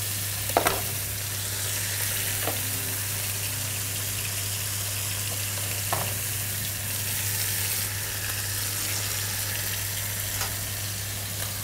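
Chicken breast frying in a lightly oiled non-stick pan, a steady sizzle. A few sharp taps of a knife on a plastic cutting board sound over it.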